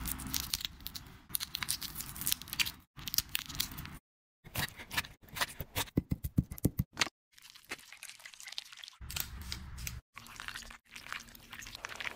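Close-up food-prep sounds in short cuts. Raw shrimp crackles and crunches as it is handled. Around the middle, a knife chops shrimp into paste on a wooden board with a quick run of strikes, and near the end a wooden spoon stirs the sticky paste in a ceramic bowl.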